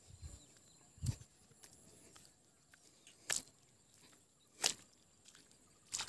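Footsteps on a muddy riverbank: a few separate short steps, each a second or more apart.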